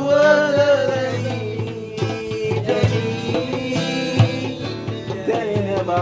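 Acoustic guitar strummed in a steady rhythm while a voice sings a gliding melody over it.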